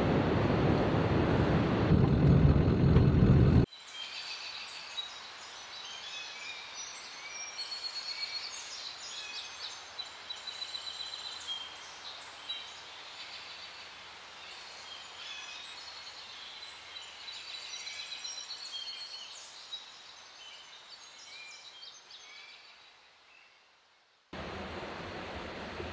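Many birds chirping and whistling, overlapping short calls that fade out near the end. Before them, for the first few seconds, steady vehicle road noise that cuts off suddenly; after them, a steady rushing noise.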